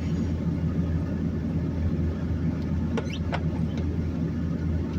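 Steady low rumble of a two-wheel-drive vehicle's engine and tyres, heard from inside the cabin while driving. Two or three short clicks come about three seconds in.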